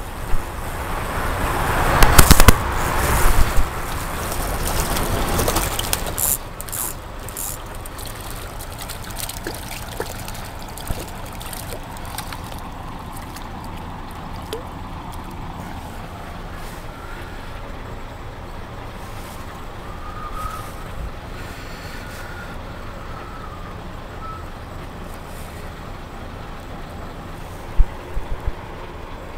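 Steady rush of a shallow river flowing over stones, with a loud rustling burst in the first few seconds and a few sharp knocks near the end.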